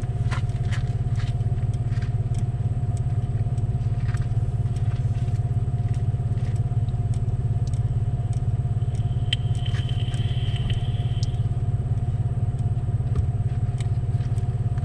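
A 2019 GMC Canyon pickup running with a steady low rumble. Light ticks are scattered through it, and a short high-pitched tone sounds a little past the middle.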